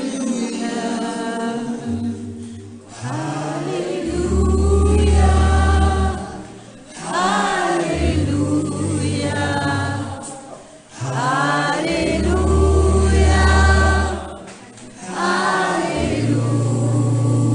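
A group of men and women singing a song together, choir-like, in phrases of a few seconds with short breaths between them. A low bass note is held under each phrase.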